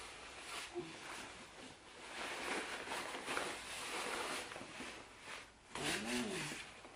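Fabric rustling and swishing as a padded stroller footmuff is pulled and fitted over the stroller seat, loudest in the middle. Near the end there is a brief hummed vocal sound that rises and falls.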